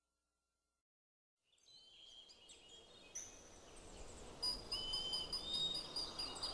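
Silence, then about a second and a half in, a recording of birds chirping over a hiss of outdoor ambience fades in and grows louder.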